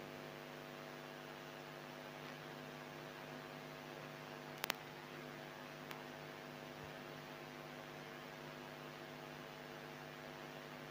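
Steady low electrical mains hum with a buzz of overtones from the mixer and amplifier audio chain. Two quick faint clicks come about four and a half seconds in, and a fainter one a second later.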